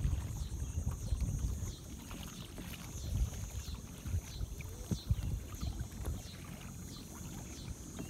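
Low wind rumble on the microphone, with a faint high chirp repeating about twice a second.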